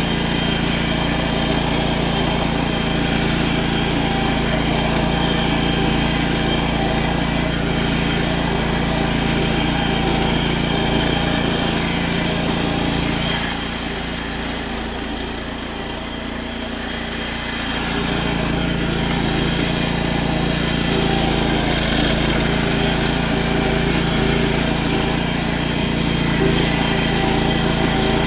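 Minitractor's small engine running steadily while driving over rough ground, getting quieter for a few seconds about halfway through before coming back up.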